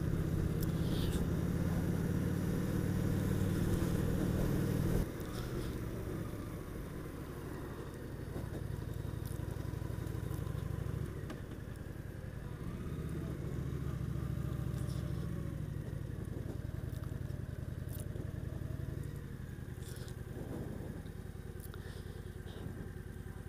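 Honda VT750S motorcycle's V-twin engine running at low road speed, heard from the rider's seat. The engine note drops about five seconds in, picks up twice as the bike pulls away, and eases off near the end as it rolls slowly.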